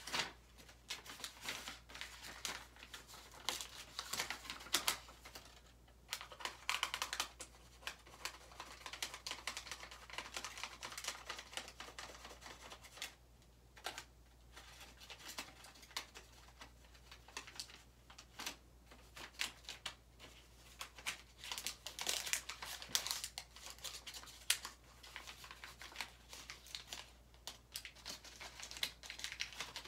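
A small piece of paper being crumpled and rubbed between the hands: dense, fine crinkling and crackling that comes in spells with brief pauses.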